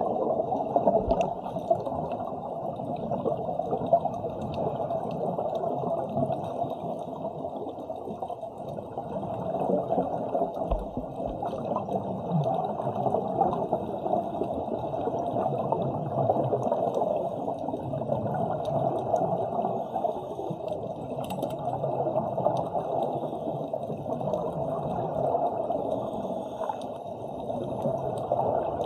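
Muffled, rushing and bubbling water noise as heard underwater, steady but swelling and fading every few seconds.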